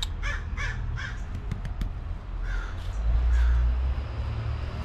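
A rapid series of short, harsh animal calls, about three a second, stopping about a second in, with two fainter calls later, over a low rumble.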